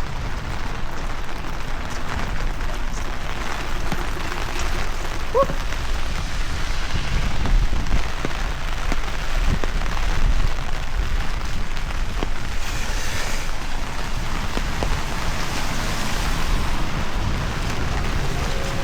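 Steady rain falling, with gusts of wind rumbling on the microphone.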